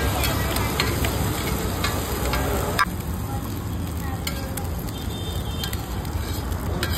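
Egg curry sizzling and frying in a pan while a metal spatula stirs it, clinking and scraping against the pan for the first three seconds or so, after which the steady sizzle goes on with only a few clinks.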